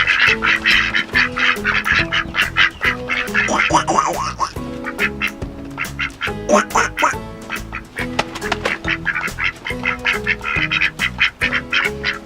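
A flock of ducks quacking rapidly and continuously, many quacks overlapping. Background music with a steady stepping melody plays underneath.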